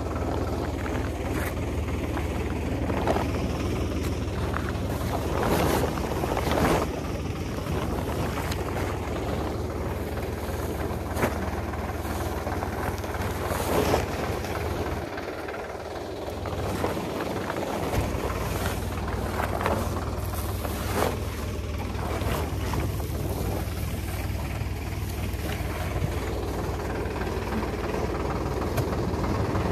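A vehicle engine running steadily, with scattered knocks and rustles from handling; the engine hum dips briefly about halfway through.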